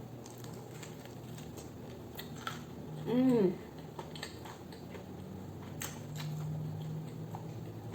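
Close-up chewing of crunchy fried chicken, faint crisp crunches and clicks, with a short hummed "mmm" about three seconds in.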